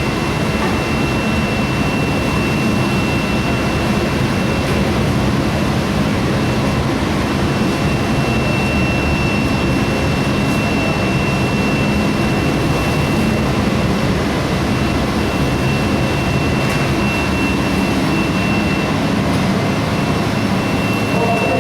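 A 200 kW induction melting furnace running: a steady high whine over a loud, even rumbling noise.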